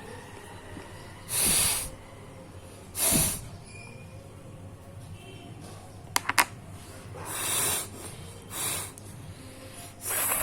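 A person blowing their nose hard: about five short, forceful blasts of air through the nose, one to four seconds apart. Three quick sharp clicks come midway.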